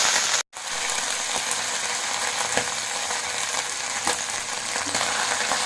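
Ginger-garlic paste sizzling in hot oil in a kadai, a steady frying hiss with a few light clicks of a spatula stirring it. The sound cuts out briefly about half a second in.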